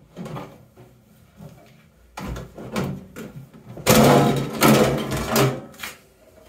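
Sheet-metal outer cover of a George Home microwave oven being slid and lifted off its chassis: metal scraping and rattling, loudest for about two seconds from about four seconds in.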